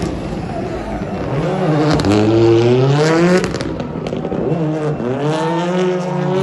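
Rally car engine revving hard as the car accelerates through a roundabout and past. The revs climb, drop sharply about three and a half seconds in, then climb again, with a few sharp pops along the way.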